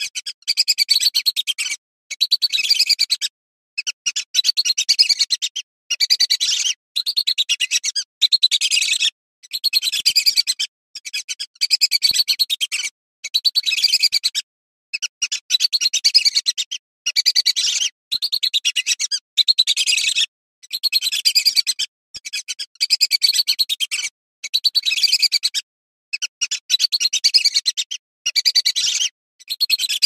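Female whistling duck (belibis) calling in bursts of rapid, high-pitched whistled notes, each burst about a second long, repeating every one and a half to two seconds with short silent gaps between.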